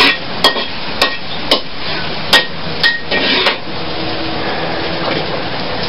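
Metal spatula clanking against a wok while onions are stirred in oil: about seven sharp, ringing strikes in the first three and a half seconds, then quieter, over a steady hiss.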